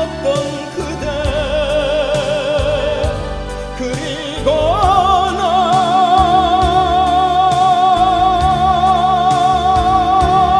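A tenor singing in an operatic style over instrumental accompaniment, the melody swelling about four and a half seconds in into a long held note with wide vibrato.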